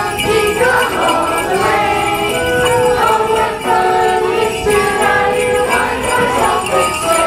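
Christmas music with jingling sleigh bells throughout and a melody of held notes.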